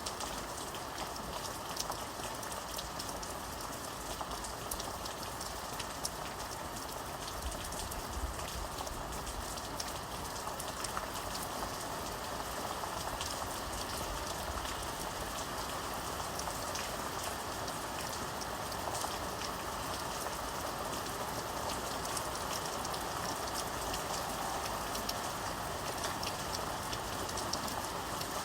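Steady rain falling, an even hiss dense with fine drop ticks on a surface.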